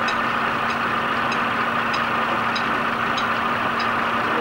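Belt-driven threshing machine and its vintage tractor running steadily at work threshing oats: an even mechanical hum with a light, regular tick about three times every two seconds.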